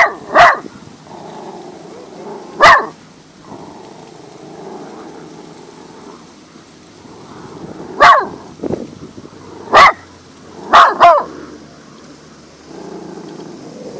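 Curly-coated dog barking in short loud barks, about seven in all, singly and in quick pairs, with a pause of several seconds in the middle.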